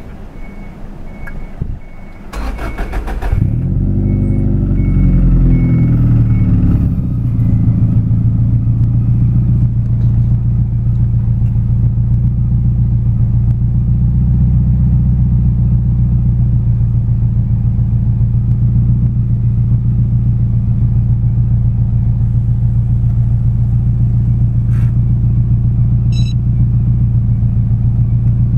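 Subaru Impreza WRX's 2.0-litre turbocharged flat-four cranked on the starter, catching about three seconds in. The revs swing up and down briefly, then it settles to a steady idle of about 1,000 rpm.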